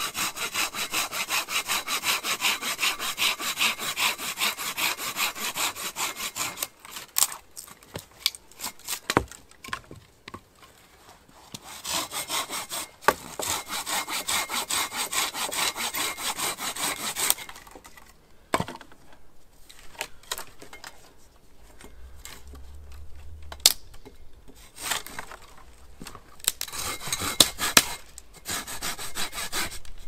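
A hand saw cutting dry firewood in quick, even back-and-forth strokes. It comes in three spells, stopping twice, and a few sharp cracks and knocks of wood fall in the pauses.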